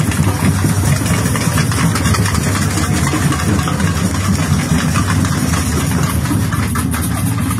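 Samba school percussion band playing a dense, steady drumming, with the low drums loudest.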